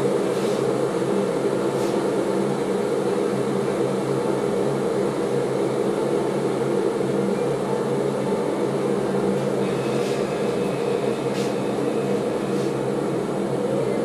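A kitchen appliance's fan motor running with a steady hum, with a few light clicks from small items being handled.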